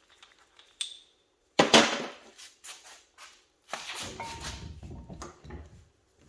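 Metal parts and tools clinking and clanking during work on a front axle shaft. A light ringing ping comes about a second in and a sharp clank just under two seconds in, followed by handling and rustling noise.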